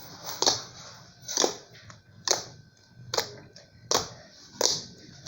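Flattened ball of slime being pressed to make slime clicks: six sharp clicking pops, a little under a second apart.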